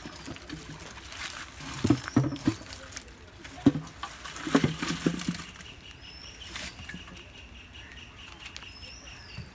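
Irregular knocks and rustling as a cast net full of fish is shaken out into a pot, in clusters during the first half. In the quieter second half a bird gives short high chirps.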